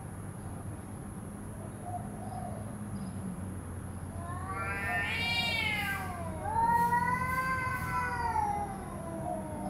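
Cat caterwauling in a face-off between two cats: long, drawn-out yowls that rise and fall in pitch. A faint one comes a couple of seconds in, then two long loud ones follow each other from just before halfway, the loudest a little after halfway.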